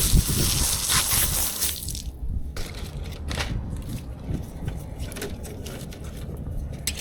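Water spraying from a garden hose onto an air-conditioner condenser coil, a loud steady hiss that cuts off about two seconds in. Scattered clicks and rustles of handling follow.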